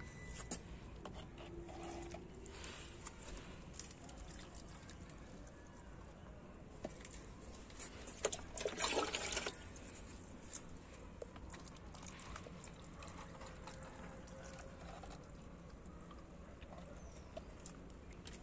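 Water poured onto the soil of a potted plant: a short splashing pour lasting about a second and a half, roughly eight seconds in. Faint background noise otherwise.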